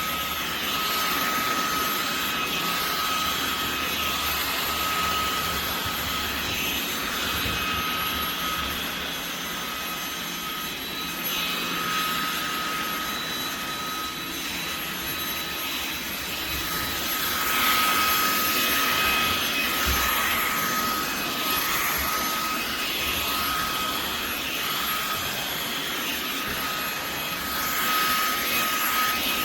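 Fanttik Slim V8 Apex cordless handheld vacuum running: a steady high-pitched motor whine over rushing air, which swells and eases a little as it works.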